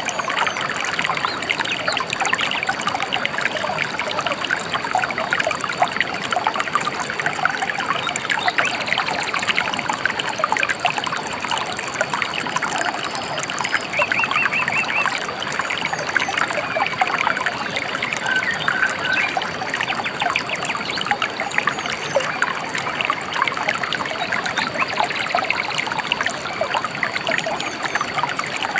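Gently flowing river trickling and babbling steadily. About halfway through a bird gives a short, rapid trill, followed a few seconds later by a couple of brief chirps.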